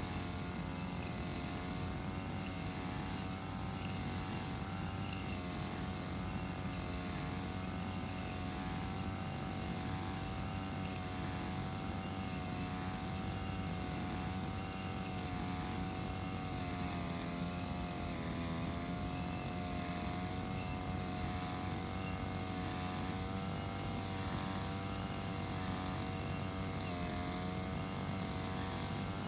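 Brush cutter's small engine running steadily while cutting grass, its pitch wavering gently up and down as the cutting head swings through the grass.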